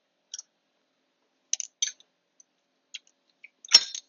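A handful of small metallic clicks and then a louder sharp click near the end, as a valve spring compressor is worked on a valve spring of a 1AR-FE cylinder head and the spring is seated.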